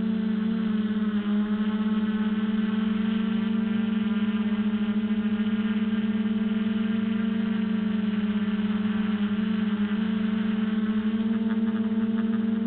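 Quadcopter's electric motors and propellers humming steadily, heard from the GoPro mounted on the craft, the pitch shifting slightly a few times.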